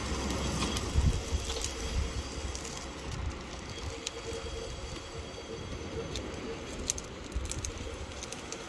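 Wind buffeting the microphone in gusts over the steady wash of small waves breaking on a sandy beach.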